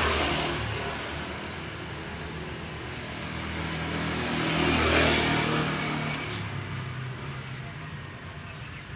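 A motor vehicle's engine going by, a low hum that swells to its loudest about five seconds in and then fades away, with a light click or two from handling the metal fuel filter canister.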